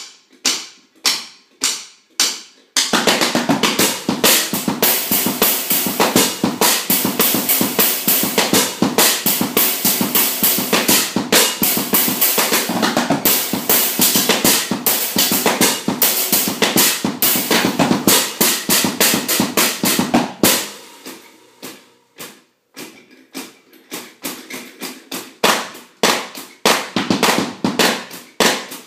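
Acoustic drum kit with muted drums being played: a few separate hits, then a long stretch of busy playing on drums and cymbals, which thins out to scattered strokes about two-thirds of the way through.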